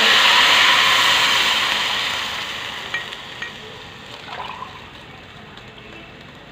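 Water poured into a hot pot of vermicelli browned in ghee and oil, hissing loudly as it hits the hot fat and fading out over about five seconds, with a couple of light knocks.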